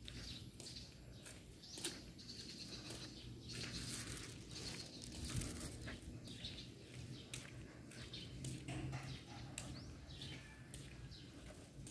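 Quiet street ambience with soft, irregular footsteps and rustling from someone walking, and a few faint bird chirps.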